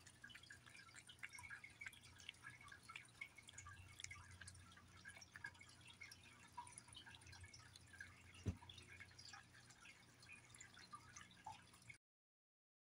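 Faint wet smacking and licking of a cat chewing and lapping wet cat food in gravy from a bowl, many small quick clicks. One louder thump comes about two-thirds of the way in, and the sound cuts off near the end.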